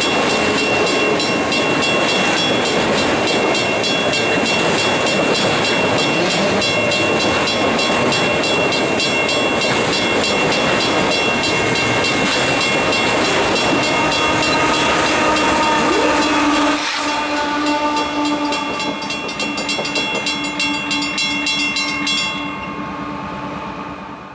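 A long freight train of autorack cars rolls past with a steady rumble of wheels on rail, a high steady squeal and rapid clicking from the wheels. About two-thirds of the way through, a locomotive at the rear of the train goes by with a lower steady engine tone, and the sound fades away near the end.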